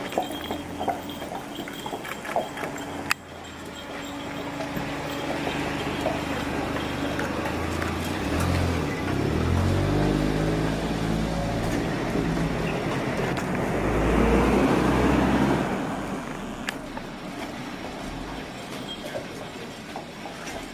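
A motor vehicle drives past, its engine rising in pitch as it pulls away. It is loudest about two-thirds of the way through, then fades.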